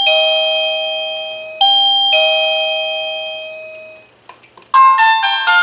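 Wireless doorbell receiver sounding an electronic two-note ding-dong chime, each note ringing and fading. The ding-dong comes again about a second and a half in and dies away. Near the end a different, quicker chime tune of many notes starts.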